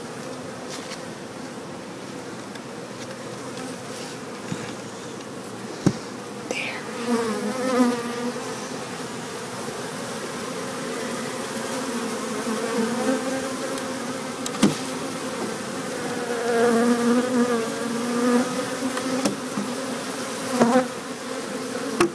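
A dense cluster of honey bees in an opened nuc box buzzing, a steady wavering hum that swells about six and a half seconds in and again past the middle. A couple of sharp knocks sound over it.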